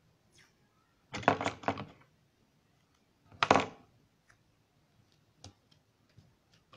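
Hands handling small circuit parts and wire on a tabletop: two louder rustling clatters, about a second in and again about three and a half seconds in, then a few light clicks.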